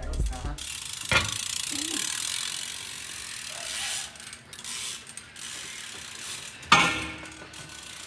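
BMX bike's rear hub clicking as the bike coasts, with a sharp knock about a second in and another near the end.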